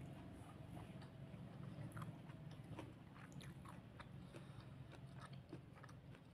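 Faint close-up chewing of a mouthful of food, with small wet mouth clicks several times a second over a low steady hum.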